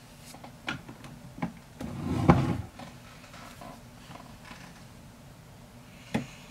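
Handling noise from someone moving about close by: a couple of light knocks, then a louder rustle with a sharp knock about two seconds in, and one more knock near the end.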